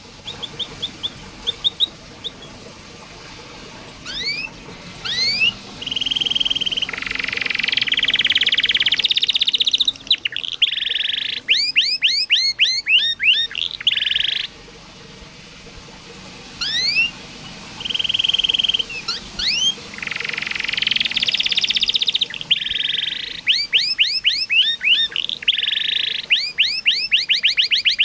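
Domestic canary singing a full song of fast runs of rising chirps alternating with sustained buzzy trills and rolls. The same sequence of phrases comes round again about halfway through.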